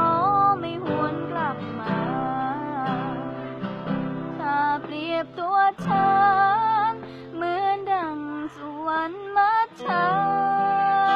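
A young woman singing a Thai song over acoustic guitar accompaniment, her voice gliding between held notes.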